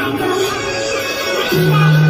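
Recorded music playing over PA loudspeakers. A deep, held bass note comes in about one and a half seconds in.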